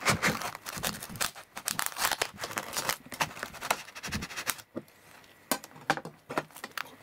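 A kitchen knife sawing through a disposable takeout bowl packed with rice and chicken: a run of crackling, tearing scrapes that thins out about two-thirds of the way through, with a few last clicks near the end.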